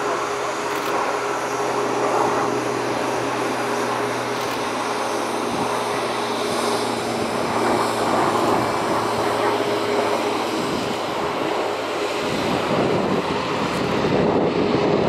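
Super Puma-type military helicopter in flight: steady engine and rotor noise with a constant tone, and a lower hum underneath that stops about eleven seconds in.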